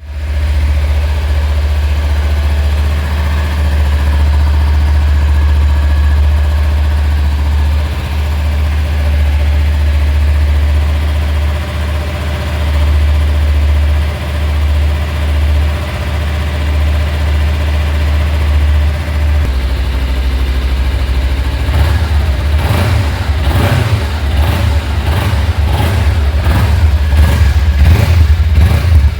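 Kawasaki Ninja 300's liquid-cooled parallel-twin engine starting and idling steadily, then revved in quick repeated throttle blips for the last several seconds.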